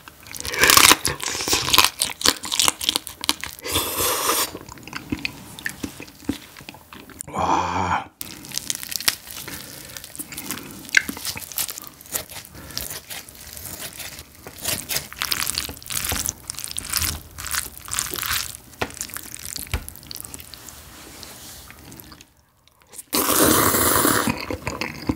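Biting into and chewing spicy marinated raw crab (yangnyeom gejang), the shell crunching loudly at first. Then comes a long stretch of small clicks and crackles, as scissors snip crab pieces over a bowl of noodles. Near the end there is a loud slurp of noodles.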